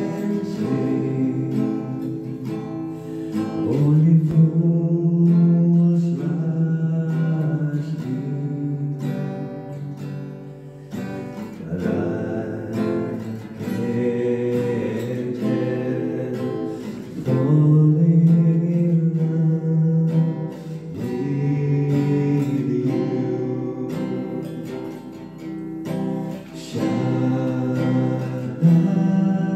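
Acoustic guitar strummed while a man sings along into a handheld microphone, holding long notes.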